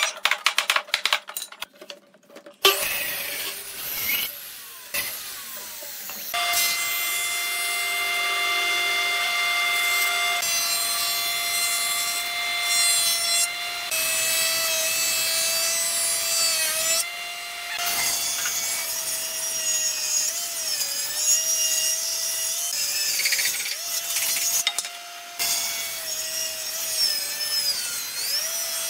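Electric power tool cutting wood: a steady motor whine that wavers and dips in pitch as it is loaded, after a quick run of clicks and knocks in the first couple of seconds.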